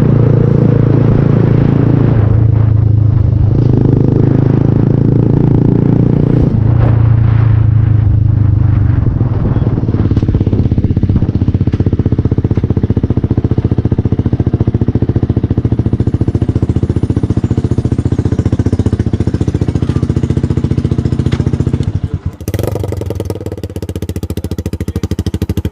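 Yamaha R15's single-cylinder engine running through a noisy silencer while being ridden at a fairly steady engine speed. About 22 seconds in it drops back to idle, with evenly spaced exhaust pulses.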